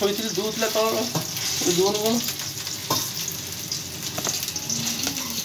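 Food sizzling in hot oil in a pan on the stove as it is stirred, a steady frying hiss.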